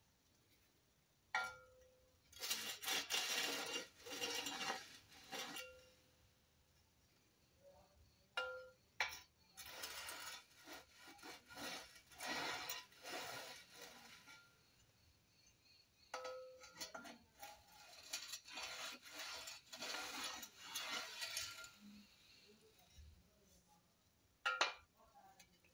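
A metal spirit level set down on a steel lathe bed with a ringing clink, then rubbed back and forth along the rails in scraping strokes, three times over, with a last clink near the end. The level's face is inked with black paint, so the rubbing marks the high spots of the bed for levelling.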